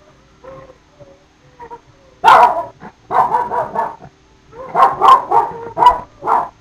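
A dog whining softly in a few short calls, then barking loudly and repeatedly in quick runs of barks from about two seconds in.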